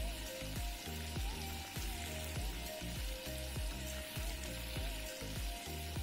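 Parrot fish pieces deep-frying in oil in a wok, a steady sizzle. It sits under background music with a steady beat, thudding bass and a simple melody.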